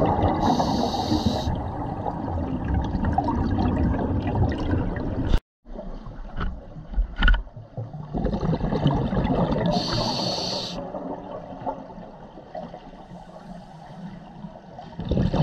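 Scuba diver's breathing heard underwater through the camera housing: the regulator hisses on the inhale twice, near the start and about ten seconds in, and each breath out releases bubbles that rumble and gurgle for several seconds. The sound cuts out for a moment about five seconds in.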